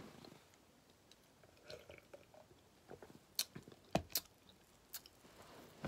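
A person sipping and swallowing a drink: faint swallowing and mouth sounds, with a few sharp clicks in the second half.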